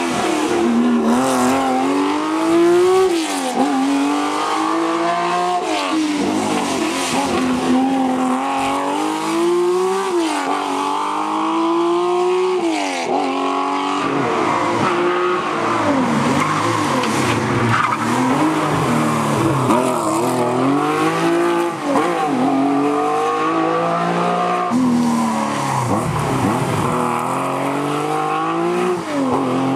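Classic Porsche 911 rally cars' air-cooled flat-six engines revving hard and shifting up through the gears, one car after another, on a tight twisty road. The engine pitch climbs and drops back over and over, every second or two, with each gear change.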